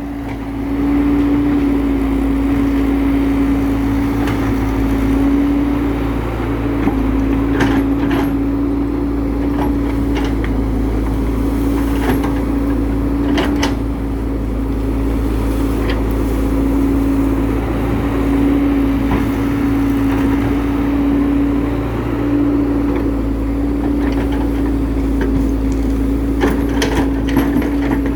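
Hydraulic excavator running steadily while digging, its engine and hydraulics giving a constant whine over a low rumble, with a few sharp knocks and clanks, clustered a quarter and half way through and again near the end.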